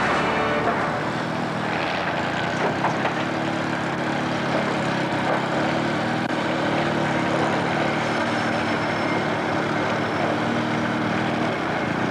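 A motor engine running with a steady drone, heavy machinery or a vehicle, as the tail of some music fades out in the first second.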